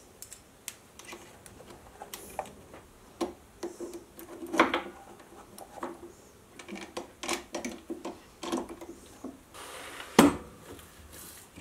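Scattered clicks and knocks of a square steel bar being clamped in a mini lathe's four-jaw chuck with a T-handle chuck key, metal tapping on metal as the jaws are tightened. Two louder knocks come about five seconds in and near the end.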